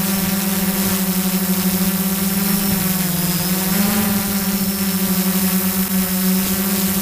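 DJI Phantom Vision quadcopter's motors and propellers buzzing steadily as it climbs, heard from on board. The pitch dips slightly about three seconds in and rises again a second later.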